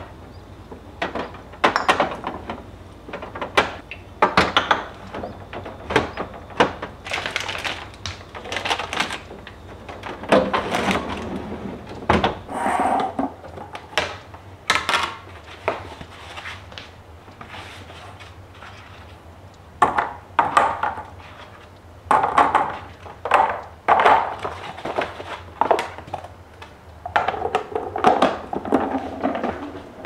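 Clear plastic storage bins and containers being picked up, set down and slid onto fridge shelves and into drawers: irregular knocks and clatters, with a lull about halfway through.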